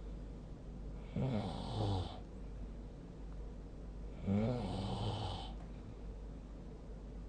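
A sleeping person snoring: two snores about three seconds apart, each lasting about a second, over a steady low hum.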